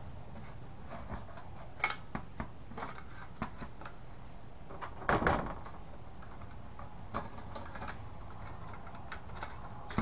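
Light clicks and knocks of a sheet-metal hard-drive cage and its plastic rails being handled, with a brief louder clatter about five seconds in.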